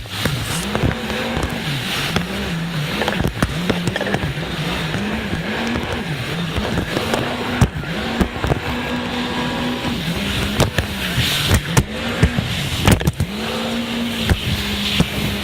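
Jet ski engine running, its pitch repeatedly dropping and climbing back as the throttle is eased off and opened again. Frequent sharp knocks and a rushing hiss run alongside it.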